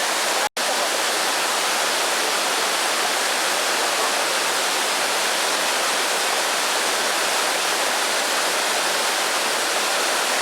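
Waterfall: a loud, steady rush of falling water, cut off for an instant about half a second in.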